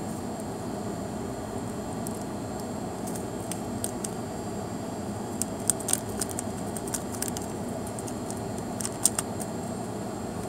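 Small plastic instant-noodle chili-oil sachet being crinkled, squeezed and torn open by hand: scattered sharp crinkles and clicks starting about three seconds in, the loudest near the middle and near the end, over a steady low hum.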